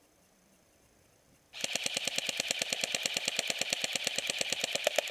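Airsoft electric gun firing one long full-auto burst of rapid, evenly spaced shots, about thirteen a second, starting about a second and a half in.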